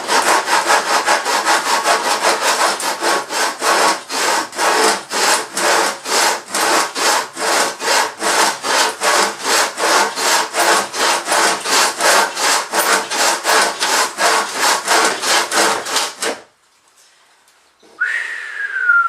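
Handsaw cutting through a wooden stud by hand, steady back-and-forth strokes about three a second that stop about sixteen seconds in. A short falling squeak follows near the end.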